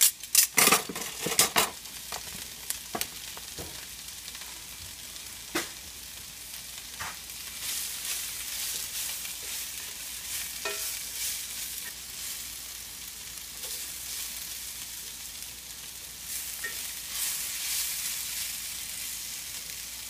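Sliced burro bananas and onions sizzling in grapeseed oil in a cast iron skillet, stirred and scraped now and then with a slotted spatula. In the first two seconds there are a few sharp clatters as plastic measuring spoons are handled.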